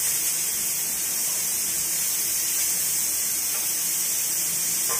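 Steady hiss from a gas stove while milk tea boils and froths up in a steel saucepan on the burner.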